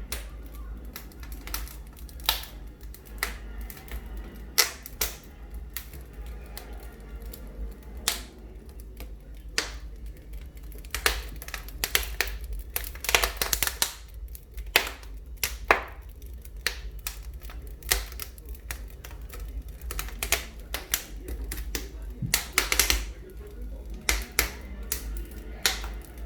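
Wood fire crackling in a fireplace, with irregular sharp pops and snaps over a steady low hum.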